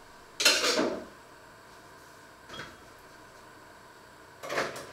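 Kitchenware being handled off to one side: a loud clatter about half a second in and another near the end, with a faint knock in between.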